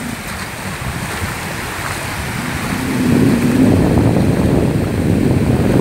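Sea waves breaking and washing up the beach, the surf swelling louder about halfway through.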